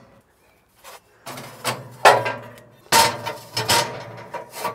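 Ceramic heat deflector plates being set onto a stainless steel grill rack: scraping and clattering, with two sharp knocks about two and three seconds in.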